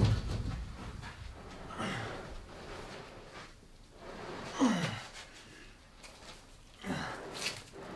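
A person's heavy breathing and two short groans that fall in pitch, about four and a half and seven seconds in.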